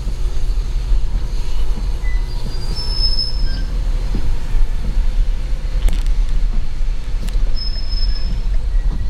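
Low, steady rumble of a car driving through snow, heard from inside the car. Short high squeals come every few seconds, with a couple of sharp clicks near the middle.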